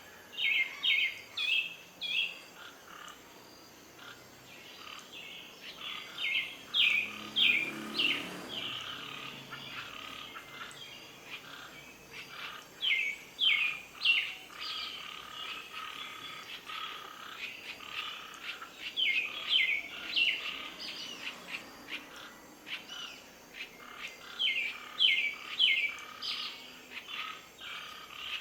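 Nature ambience of calling animals: groups of quick, high chirping calls that come about every six seconds over a steady background chorus.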